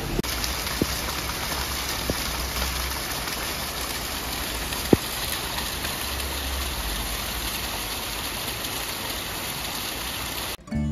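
Steady rushing hiss of a shallow river running over stones, with rain falling. A few sharp taps stand out, the loudest about five seconds in, and the sound cuts off just before the end.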